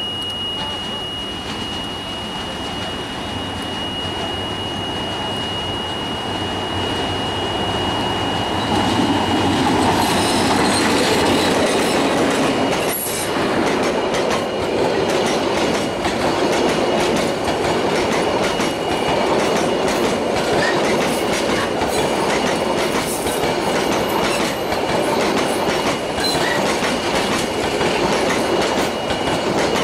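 A level-crossing warning buzzer holds one steady high tone while the EMD 8-645E3C two-stroke diesel locomotive approaches, its engine running. From about ten seconds in the sound grows louder as the locomotive reaches the crossing, and the passenger coaches roll past with a steady clickety-clack of wheels on rail joints.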